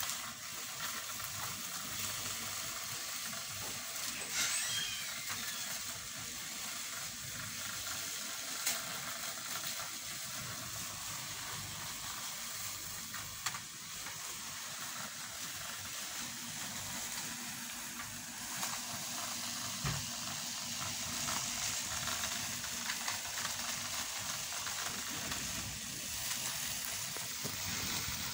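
Black plastic bag crinkling and rustling as a kitten paws, bites and pushes it across a vinyl floor mat, a steady crackling with a few sharper crackles.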